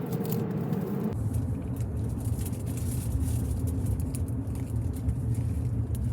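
Steady low road rumble of a car in motion, heard inside the cabin, with faint scattered clicks. About a second in, the rumble drops abruptly to a deeper, stronger tone.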